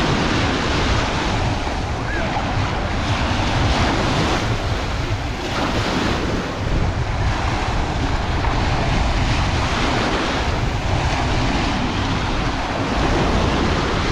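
Sea waves washing onto the beach in repeated swells, with strong wind buffeting the microphone in a heavy low rumble.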